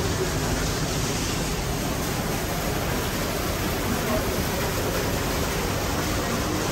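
Steady, even hiss of an aquarium hall's ambience, with faint, indistinct voices of other visitors.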